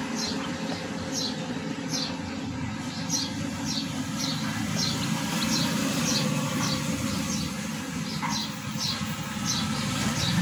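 Baby poultry chicks peeping: short high chirps, each falling in pitch, about two a second, over a steady low hum.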